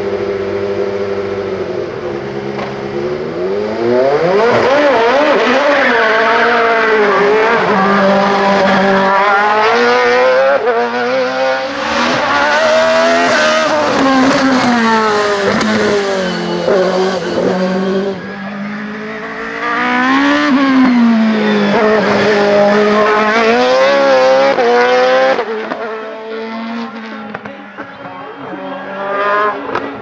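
Lola FA99 single-seater race car engine running steadily on the start line, then revving hard at full throttle. Its pitch climbs and drops again and again as it shifts through the gears, loud as it goes by and fading near the end.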